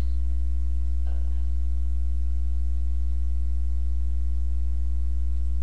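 Steady low electrical mains hum with a stack of even overtones, holding at one level throughout.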